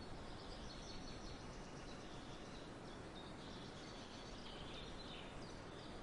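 Faint forest ambience: a steady low hiss with small birds chirping in scattered short, high notes.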